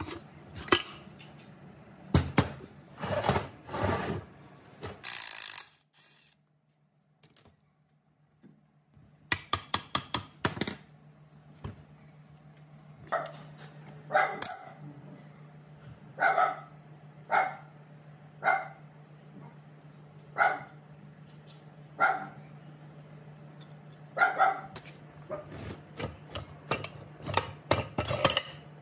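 Metal knocks and clinks as cast-iron cylinder barrels are handled and fitted onto an old air compressor's crankcase and the nuts are turned with a wrench. The sounds come in bunches: a quick run of clicks about a third of the way in, then short sharp knocks every second or so.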